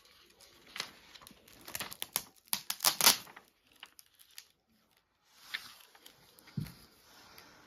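Paper and plastic gift wrapping crinkling and rustling in the hands as a present is unwrapped, in a run of sharp crackles that is loudest about three seconds in. A soft thump follows near the end.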